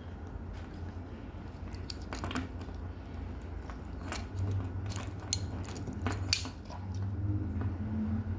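Small metal-and-plastic multitool being handled, with a few sharp clicks and light rattles spread through, over a steady low hum.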